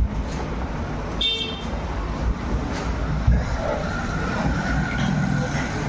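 Steady low rumble of road traffic, with a short horn-like toot about a second in.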